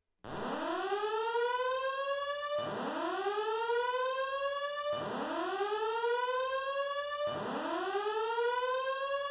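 Fire alarm voice-evacuation system sounding its whoop tone, the alert signal played between spoken evacuation messages. It is a slow rising sweep repeated about every two and a half seconds: four full sweeps, with a fifth starting near the end.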